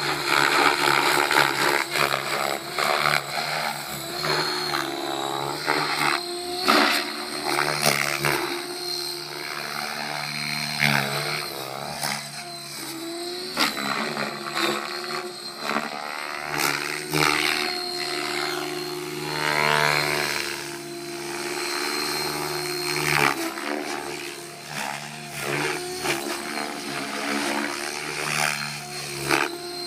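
Align T-Rex 700E Pro DFC electric RC helicopter in flight: its rotor blades chop and its brushless motor and gears whine. The pitch and loudness rise and fall as it manoeuvres and passes by.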